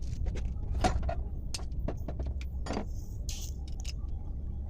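Metal tools clicking and knocking irregularly against a brake caliper as its guide pins are being undone, over a steady low rumble.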